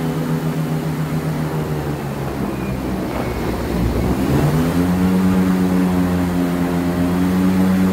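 Airboat engine and air propeller running at speed. About two seconds in the engine note drops and blurs, then a little past halfway it climbs back to a higher, steady pitch and gets a bit louder.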